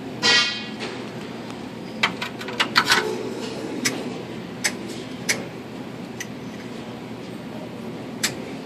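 Scattered light clicks and taps, a few close together a couple of seconds in and then single ones every second or so, over a steady low hum. A short, loud pitched squeak or cry sounds just after the start.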